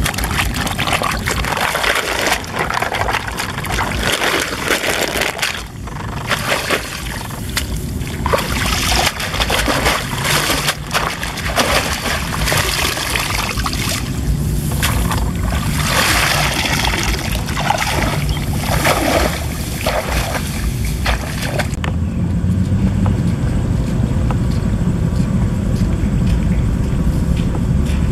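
Hands splashing and sloshing in shallow water and rustling through wet grass and weeds while picking snails. About three quarters of the way through this gives way to a steady low rumble of wind on the microphone.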